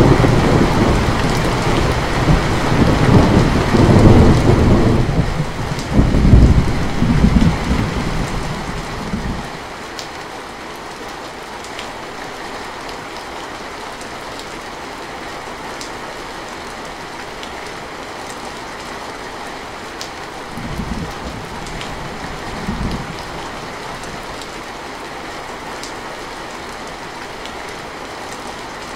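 Heavy rain drumming on a metal roof, with scattered sharp ticks of single drops. A long, loud roll of thunder fills the first nine seconds or so and then dies away to steady rain, and two shorter, fainter rumbles of thunder follow later.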